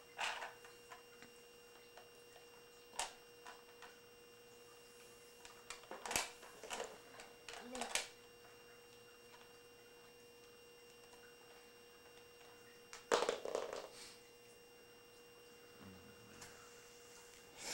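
Scattered clicks and knocks of small plastic toys being handled on a wooden floor, with a cluster about six to eight seconds in and another around thirteen seconds, over a steady faint hum.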